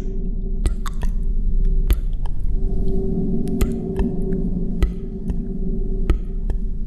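A steady low hum with a held mid tone, with sharp clicks scattered irregularly over it.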